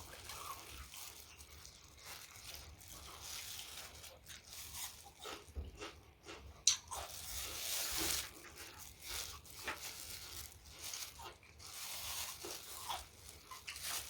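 Close-up eating sounds: a mouth chewing and biting into food, with irregular wet clicks and crunches.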